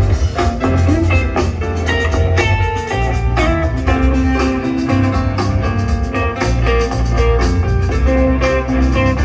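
Live rock band playing a guitar-led jam over bass and drums, heard through the concert's loud sound system.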